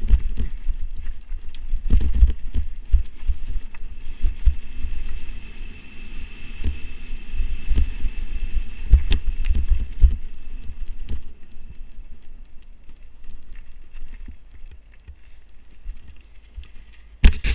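Mountain bike rolling fast down a bumpy dirt trail: irregular low thumps and rumble as the bike and mounted camera jolt over the ground. A faint thin steady high tone runs for several seconds in the middle, and there is a sharp louder noise just at the end.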